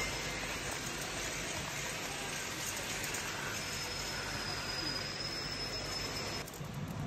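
Metal shopping cart rolling along a store floor, its steady rolling noise carried straight into a phone lying in the basket. About six seconds in the hiss drops away and a lower rumble is left.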